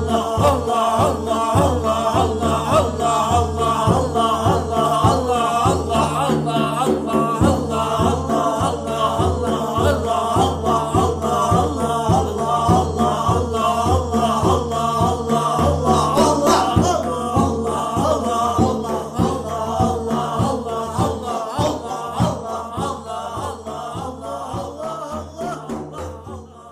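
Rhythmic zikr chant, voices repeating the remembrance of Allah together over a steady pulsing beat, fading out through the last several seconds.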